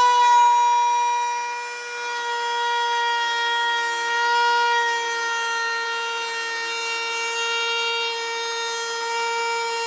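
Router motor running at high speed with a steady high whine while its bit cuts the binding channel into the edge of a wooden guitar body, the pitch sagging slightly about a second in as the bit takes load.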